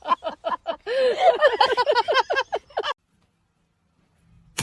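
A rapid run of short, pitched vocal sounds, about eight a second, that grows denser and louder about a second in and breaks off sharply near the three-second mark.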